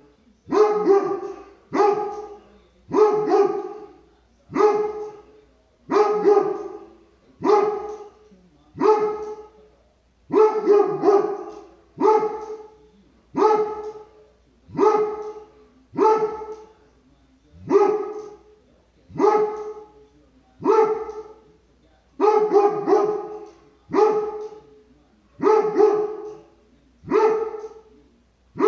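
A Doberman barking at a squirrel outside, a steady run of loud single and double barks about every second and a half.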